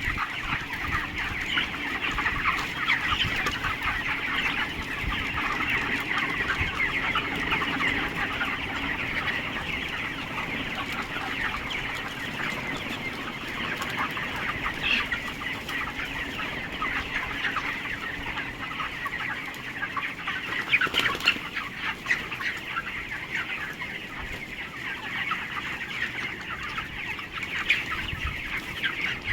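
A large flock of 27-day-old farm chickens clucking and cheeping all at once, a dense, continuous chatter of many overlapping calls.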